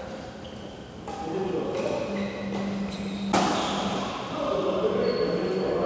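Badminton rally: racket strings striking a shuttlecock several times, the sharpest hit about three and a half seconds in and echoing through the big hall, with players' voices in the background.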